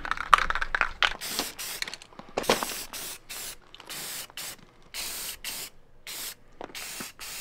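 Aerosol spray paint can, rattling briefly at first, then spraying in about a dozen short hissing bursts.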